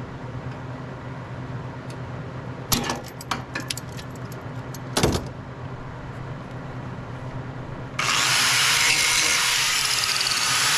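A steady engine hum underneath, a few metallic clinks and a knock, then, about eight seconds in, an angle grinder starts abruptly on the steel of the trailer's jack beam and keeps grinding.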